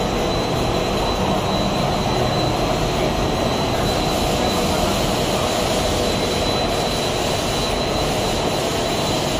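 Paper-cup glue coating machine running steadily: an even mechanical rush and hum from its rollers and chain drives, with a thin steady high whine.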